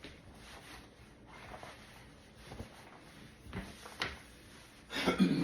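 Faint kitchen handling noises: a few light knocks and clicks from things being moved about, then a brief bit of voice near the end.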